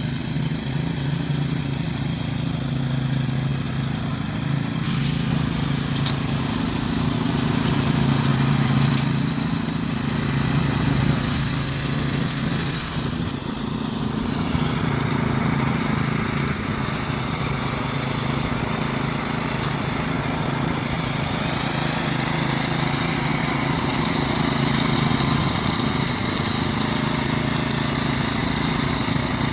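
Cub Cadet CC30H rear-engine riding mower running steadily while it mows and bags fallen leaves, with a constant engine drone and a hiss of cutting and blowing above it that grows stronger a few seconds in.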